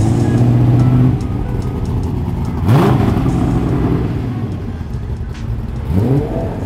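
Car engine revving hard twice, its pitch climbing quickly each time: once about three seconds in, with a brief loud burst, and again near the end.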